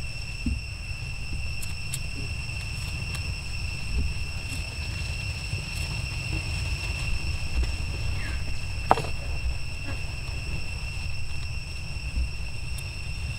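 Steady high-pitched insect drone, with a low rumble underneath and a single sharp click about nine seconds in.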